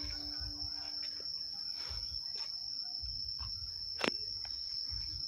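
Insects in the surrounding vegetation chirring in one steady high-pitched tone, over low rumbling on the microphone. A single sharp click about four seconds in.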